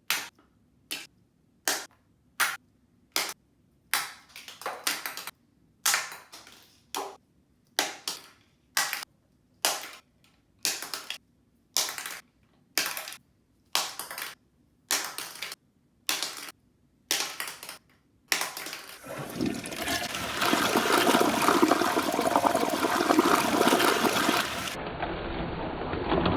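About twenty short, sharp hits, roughly one a second, then a toilet flushing with a loud, steady rush of water for the last seven seconds.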